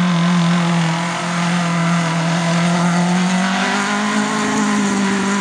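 Rally car engine held at high revs as the car drives past, a loud, nearly steady note that rises slightly in pitch about three and a half seconds in.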